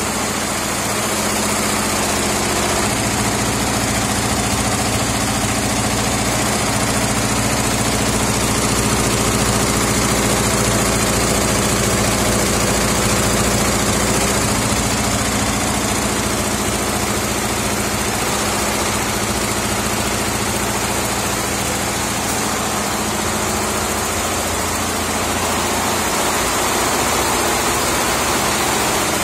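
A 68-head multi-needle industrial embroidery machine running, all its heads stitching at once in a loud, steady mechanical din with a low hum underneath.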